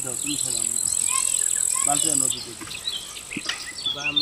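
An insect buzzes at a steady high pitch, then cuts off suddenly a little past halfway.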